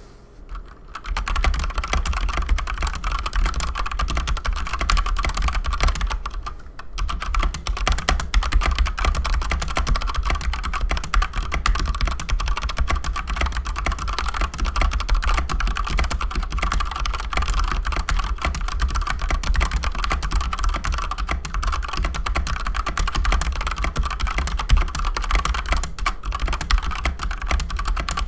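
Fast continuous typing on a Keychron C2 mechanical keyboard with stock Gateron Brown tactile switches and PBT keycaps: a dense stream of key clacks. It starts about a second in and pauses briefly about six and a half seconds in.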